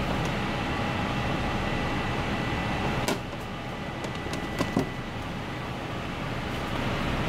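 Steady kitchen background hum with a faint high steady tone, broken by a few light clicks about three seconds in and again twice near the five-second mark.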